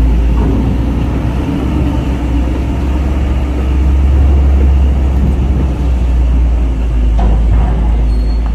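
Heavy diesel trucks running with a loud, steady low rumble as vehicles load onto a ferry.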